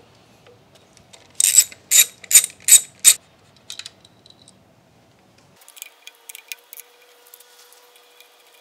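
Socket ratchet clicking while loosening the 10 mm bolts that hold the ignition coils: five quick, loud back-strokes in under two seconds, then lighter, faster clicking later as the next bolt is worked.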